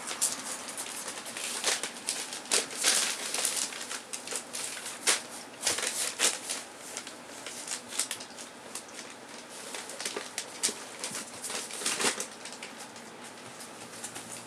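Rough collie puppies scuffling about in a pen: irregular clicks and scratches of claws on the floor, with rustling of newspaper.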